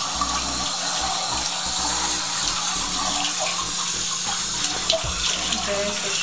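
Water running steadily from a tap into a bathtub, an even splashing hiss.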